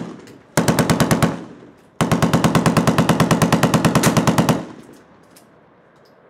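Bursts of fully automatic gunfire at about ten shots a second: a short burst about half a second in, then a longer burst of about two and a half seconds starting two seconds in.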